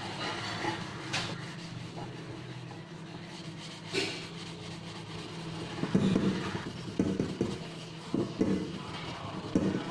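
Soapy sponge scrubbing the inside of a stained stainless steel pot, a rubbing sound in repeated strokes that gets louder from about six seconds in.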